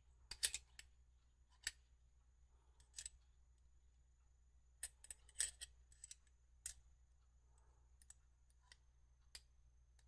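Scattered sharp metal clicks and taps from a spoke tension meter being worked by hand: a 3 mm hex key set into and taken out of its rollers, and the spring-loaded lever closing on it. There is a quick run of clicks about half a second in and a busier cluster around the middle.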